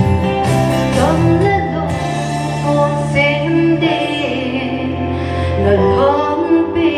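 Women singing a song through microphones, with instrumental accompaniment holding long low notes underneath.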